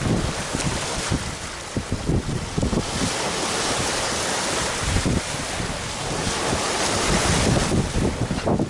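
Gusty wind buffeting the microphone over small sea waves washing and breaking against a rocky shore and sandy strip.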